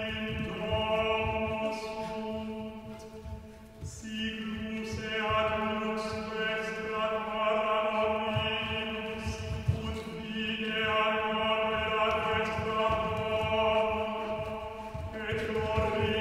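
Chanting voices holding one sustained note as a drone, fading a little and swelling back in about four seconds in, again around ten seconds, and near the end. Irregular low thuds sound beneath it.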